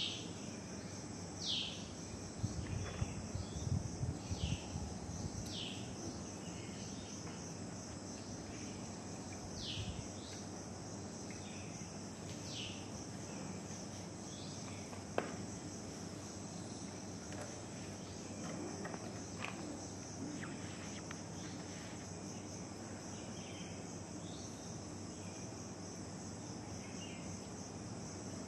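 Steady high-pitched chirring of insects, with a bird's short falling whistled calls repeated several times in the first half. Some low bumps and rumble in the first few seconds and a single sharp click about halfway through.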